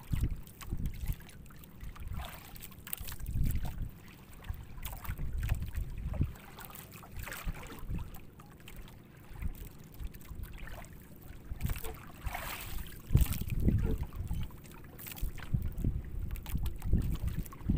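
Sea water lapping and splashing against the hull of a small boat, in irregular surges every few seconds, with wind on the microphone.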